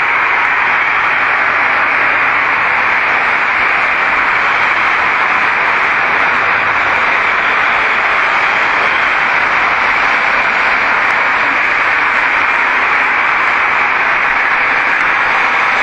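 Loud, steady hiss of recording noise, even throughout, with no words or distinct events standing out of it.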